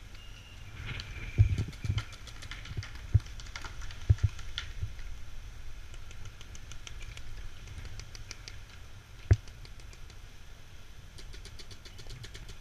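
Paintball markers firing, heard as runs of sharp pops several a second, with a few louder low thumps near the camera at irregular moments.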